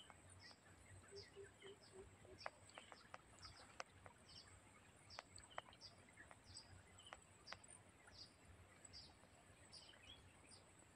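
Near silence outdoors with a faint bird chirping over and over at an even pace, roughly every half second, over a thin steady high whine. A few faint clicks are scattered through it.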